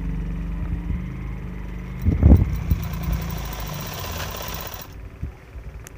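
Sewing machine's electric motor running with a steady hum, with a short heavy knock about two seconds in; the motor cuts off suddenly about five seconds in.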